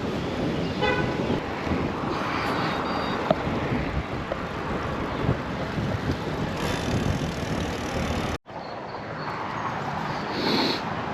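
Steady wind and rolling noise while riding a bicycle, with a short horn-like tone about a second in. The sound drops out for an instant about eight seconds in.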